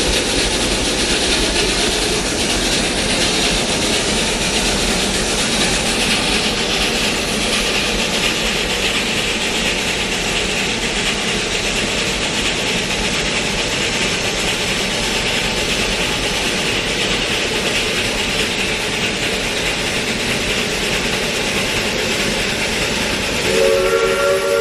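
Narrow-gauge steam locomotive venting steam in a loud, steady hiss. About a second before the end, its steam whistle starts sounding a chord of several tones.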